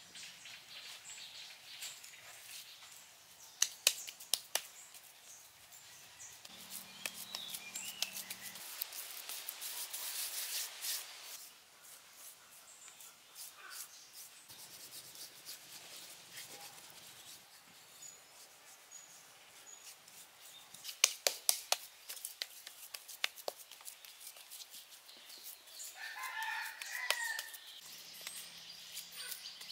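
Wet mud being slapped and patted by hand, heard as scattered sharp slaps in clusters about four seconds in and again past twenty seconds. A rooster crows once near the end, over faint bird calls.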